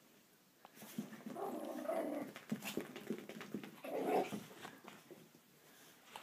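Chihuahuas growling in play, in two spells: a longer one about a second in and a shorter one about four seconds in, with light scuffling clicks between.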